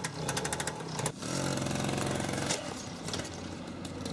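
Tomos moped's small two-stroke engine running through a straight pipe, firing in rapid, even pulses. About a second in it dips, then settles into a steadier drone that eases off a couple of seconds later.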